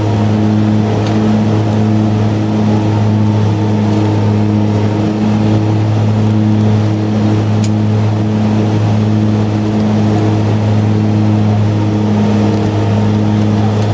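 Steady, loud drone of a BAe Jetstream 31's twin Garrett TPE331 turboprop engines and propellers, heard inside the cabin: a deep hum with evenly spaced overtones over a rushing noise.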